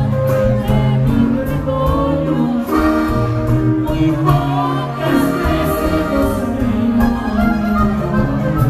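Music: a recorded song with singing over a band and a steady bass line.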